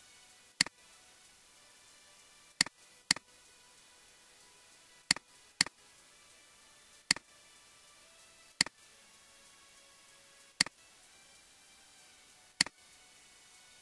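Computer mouse button clicks: nine sharp single clicks, mostly about two seconds apart, with two quick pairs among them. A faint steady hiss runs underneath.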